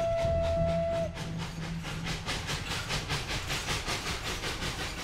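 Steam train: a long steady whistle that cuts off about a second in, then the rapid, even rhythmic clatter of the train running.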